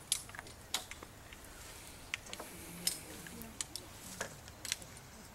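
Hand ratchet PVC pipe cutter being squeezed on gray 3/4-inch electrical PVC conduit: a series of sharp, irregularly spaced clicks, about eight of them.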